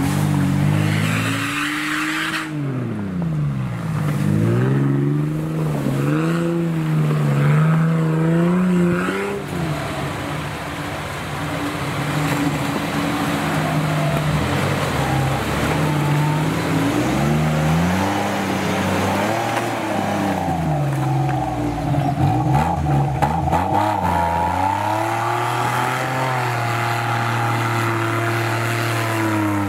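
Off-road 4x4 engine revving up and down again and again under load, its pitch rising and falling in waves, then holding steady for a few seconds near the end. A run of short knocks sounds around two-thirds of the way through.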